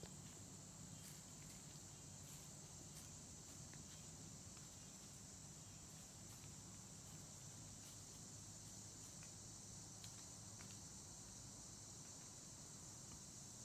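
Faint, steady high-pitched chorus of insects, crickets or similar, running without a break, with a few faint scattered clicks or rustles.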